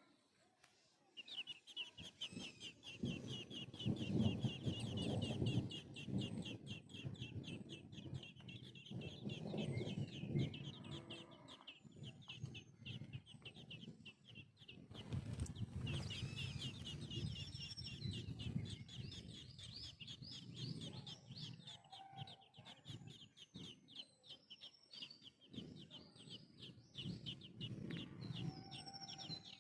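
Nestling birds giving a fast, near-continuous run of high begging chirps, several a second, over stretches of low rumbling noise.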